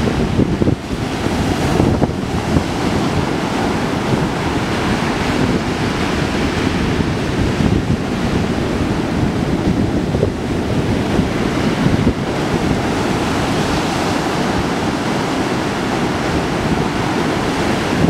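Ocean surf breaking and washing up a sandy beach, a continuous rushing wash, with wind buffeting the microphone as a low rumble underneath.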